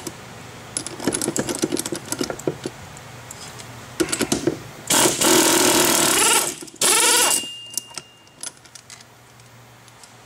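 Air-powered wrench running for about two seconds, driving the forcing screw of a three-arm puller to draw the clutch pulley off a Sanden SD7 A/C compressor. Metal clinks of the puller and tools being handled come before and after it.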